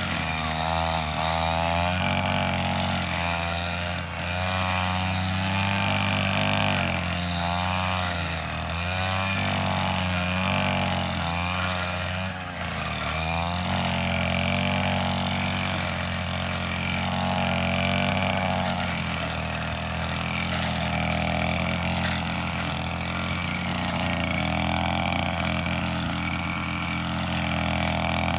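Petrol brush cutter's small engine running at high speed while cutting grass. Its pitch rises and falls in regular swells as the blade is swept through the grass, strongly at first and more gently after about halfway.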